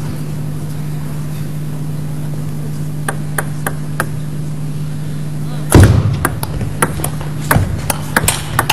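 Table tennis ball play: a few light, evenly spaced ball clicks, then a loud thud about six seconds in, followed by a rapid run of sharp knocks of the celluloid ball on bats and table, over a steady low hum.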